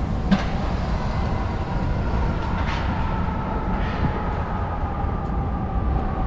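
City street traffic: a steady low rumble with a faint whine drifting slowly lower, and a few light clicks.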